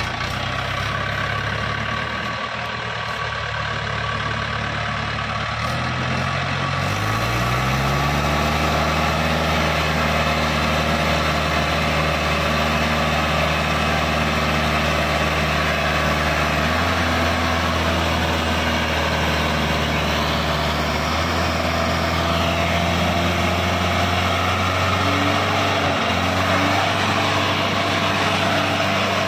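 Mahindra 575 tractor's four-cylinder diesel engine running steadily. Its revs rise about seven seconds in and then hold at the higher speed.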